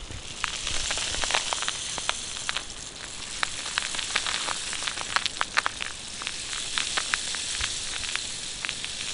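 Homemade rain-effect sound from a rain stick made of an empty kitchen-roll tube and nails: a steady hiss of pattering, dotted with many sharper ticks like raindrops.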